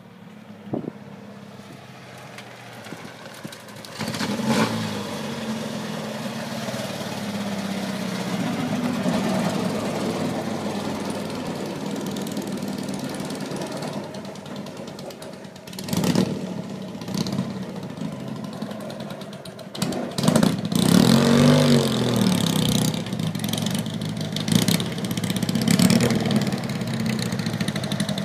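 Engine of the BMW-engined Avila racecar starting about four seconds in, then running steadily and being revved up and down several times in the second half.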